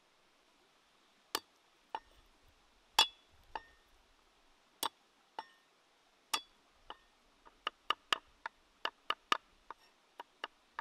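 Cleaver chopping garlic on a wooden chopping board. A few single sharp knocks come at first, then a quicker run of chops, about three or four a second, through the second half.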